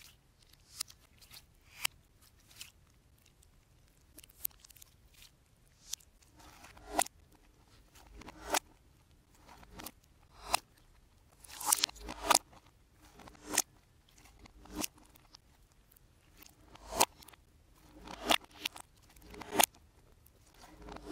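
Hands kneading, stretching and pressing glossy slime. It gives irregular sharp clicks and pops, some in quick clusters, with quiet gaps between.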